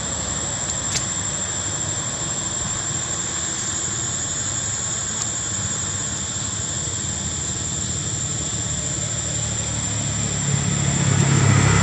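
A steady low engine rumble under a constant high whine; about ten and a half seconds in the rumble grows louder as the engine comes closer.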